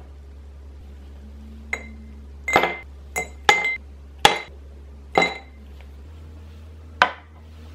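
Ice cubes dropped one at a time with tongs into a tall glass tumbler. They land as a run of sharp clinks with short glassy rings, about seven between roughly two and seven seconds in.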